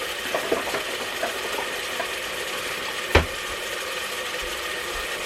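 A hamburger breaker (meat chopper utensil) being handled: several light clicks and rattles in the first two seconds, then one sharp knock about three seconds in, over a steady background hum.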